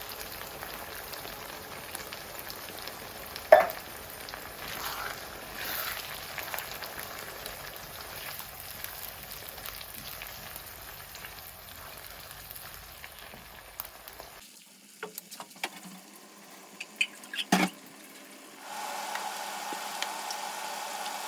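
Fried onion, pepper, ginger and garlic base with chopped tomatoes sizzling in hot oil in a pot, with one sharp knock about three and a half seconds in. The sizzle cuts off abruptly about two-thirds of the way through, a few clicks and knocks follow, and then a steady hum sets in.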